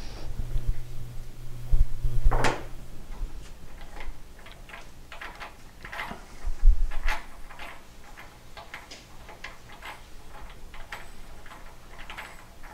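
A metal wrench set down on a table with a single knock about two and a half seconds in, then light, irregular clicks and scrapes of metal as a check valve is unscrewed by hand from the head of a metering pump.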